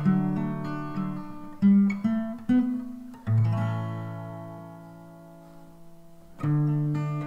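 Acoustic guitar intro, notes and chords plucked with sustain. A chord struck a little past three seconds is let ring and fade for about three seconds before the picking starts again near the end.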